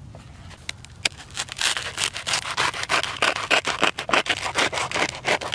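A knife sawing through the hard crust of a freshly baked loaf of bread: quick, rasping back-and-forth strokes that start about a second and a half in, after a couple of light clicks.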